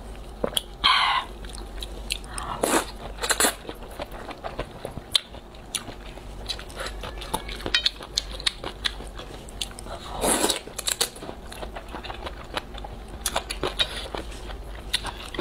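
Close-miked eating of spicy luosifen rice noodles: steady chewing and crunchy bites, a run of short wet clicks, with a few louder, longer bursts about a second in, around three seconds and around ten seconds in.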